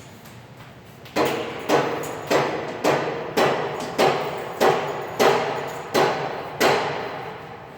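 A hammer striking repeatedly at a steady pace, about ten blows a little over half a second apart, each ringing briefly before the next.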